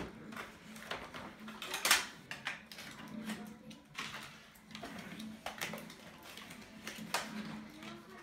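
Toy packaging being worked open by hand: irregular crinkling and small clicks, with one sharp snap about two seconds in.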